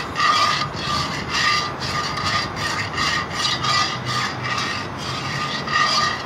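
A metal utensil scraping burnt bacon residue off the bottom of a hot frying pan, in quick repeated strokes at about three a second.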